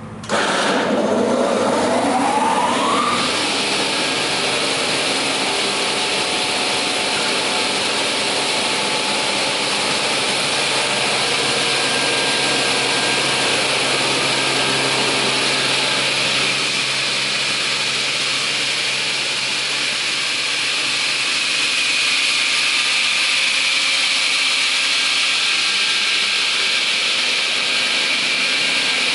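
Raimann KR 310E multi-rip saw starting up. The saw motor spins up with a rising whine over about three seconds, then runs on steadily with a loud whirring hiss.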